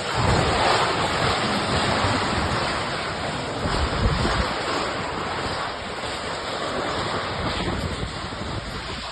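Strong gusty wind blowing hard in a storm, rushing and buffeting the microphone with low rumbles, easing a little in the second half.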